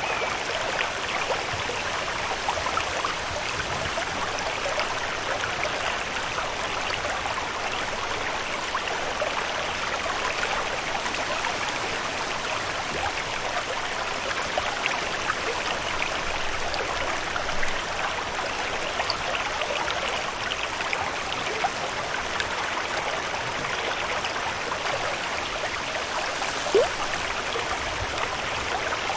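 Steady water ambience: an even, constant rush of running or falling water with fine trickling detail throughout. A single short tick stands out near the end.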